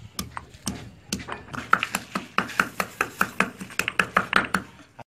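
Stone pestle pounding ginger and garlic in a stone mortar: sharp knocks, a few scattered at first, then a quick steady run of about five a second that stops shortly before the end.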